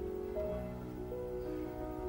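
Slow, soft instrumental music with held notes that change about every half second.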